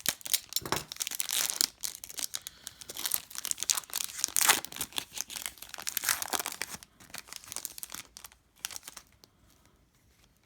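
Plastic foil trading-card pack wrapper being torn open and crinkled by hand, a dense crackling that thins out and stops about nine seconds in.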